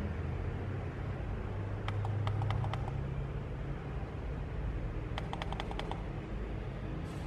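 Two quick runs of small clicks from the dials and buttons on an Aputure Nova LED panel's control box, as the Color Cycle effect's speed setting is stepped up.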